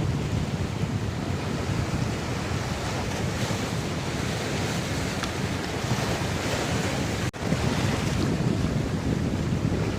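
Strong wind buffeting the microphone over the steady rush of breaking sea waves, with a momentary drop-out in the sound about seven seconds in.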